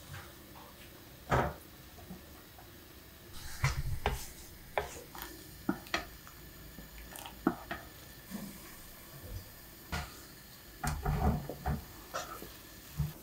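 Wooden spoon stirring heating milk in a frying pan, with irregular knocks and scrapes of the spoon against the pan, in small clusters.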